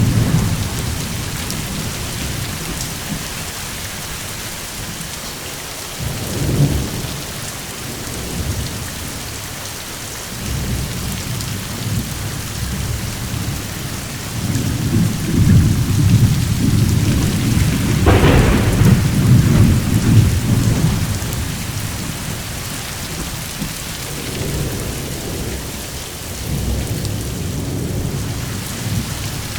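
Steady rain hissing, with thunder rumbling over it: short rumbles near the start and about six seconds in, a long rolling rumble around the middle with a sharper crack within it, and more low rumbles near the end.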